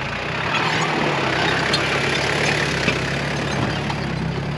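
Four-wheel-drive ute's engine running low and steady as it crawls slowly over a rocky dirt track towing a boat trailer, with rough tyre noise over the stones and a few small knocks.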